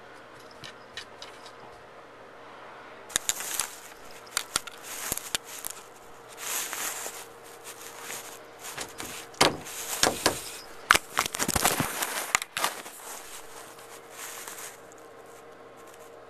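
A house cat scratching, pawing and rattling at a closed bathroom door to get out. An irregular run of scratches, knocks and rattles starts about three seconds in, is busiest a little past the middle and stops near the end, over a faint steady hum.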